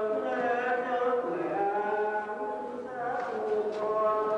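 Choir singing a slow Vietnamese hymn in long held notes.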